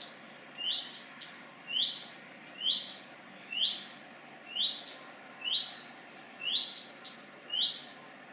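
Redstart, which the owner takes for a fledgling, whistling the same short rising note over and over, about once a second.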